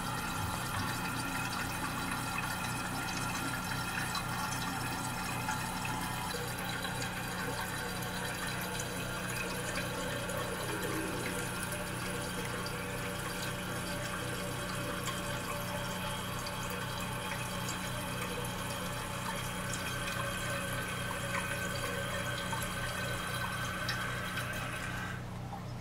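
Toilet cistern refilling through its float-valve fill valve: a steady rush of water into the tank, which cuts off near the end as the water reaches the set fill level and the valve closes.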